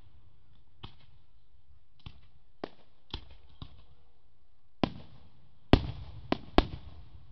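Aerial firework shells bursting in a public fireworks display: about nine sharp bangs at uneven intervals, with the loudest, closest-spaced ones near the end.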